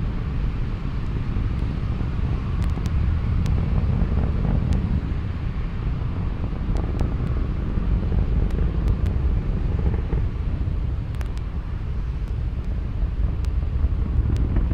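Falcon 9 rocket's nine first-stage Merlin engines during ascent, heard as a steady deep rumble with a few faint crackles.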